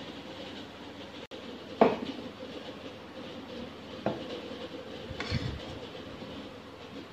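A metal spoon clinking against dishes three times, the loudest knock a little under two seconds in, over a steady background hum.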